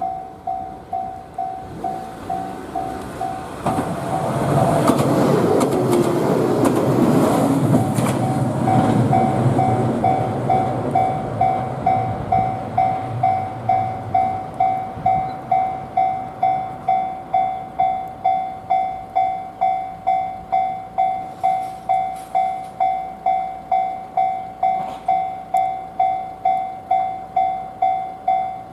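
Japanese level crossing's electronic warning bell ringing without pause, about two dings a second, which the uploader suspects is a crossing fault while all trains are cancelled by heavy snow. A passing vehicle's rushing noise swells over it from a few seconds in and fades away before the halfway point.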